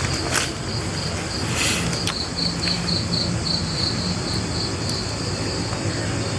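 Crickets chirping at night, a steady high pulsing of about four chirps a second, over a low hum.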